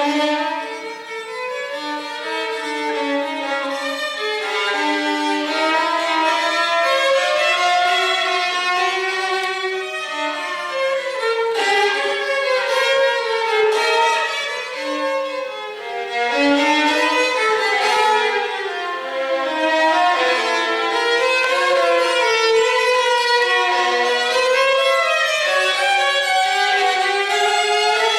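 Violin music, several lines of bowed melody moving through many notes at a steady level.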